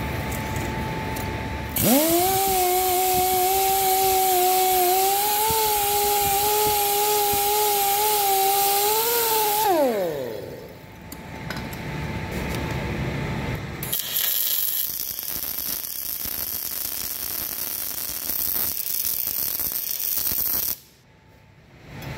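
A grinder fitted with a twisted wire wheel runs for about eight seconds, brushing a weld bead between passes, then spins down. A few seconds later, metal-core MIG welding crackles for about seven seconds and stops abruptly.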